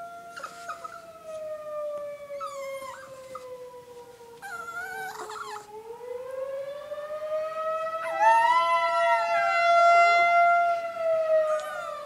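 Chihuahua howling along with a tornado siren. The siren's steady wail slides down in pitch and climbs back up about halfway through. The dog gives short wavering cries early on, then a long, loud, wavering howl from about eight seconds in until about eleven.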